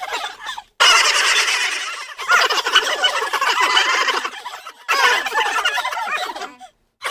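Turkey gobbling in rapid warbling runs, several in a row with short breaks between them.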